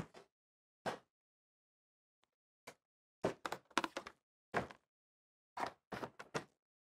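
Rooftop cover of a Furrion RV air conditioner being lowered onto the unit and pressed into place: a series of short, light knocks and clatters as it seats, several in quick succession around the middle and again near the end.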